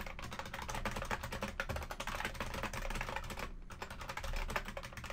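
Typing on a computer keyboard: a quick, uneven run of key clicks, with a short pause a little past halfway.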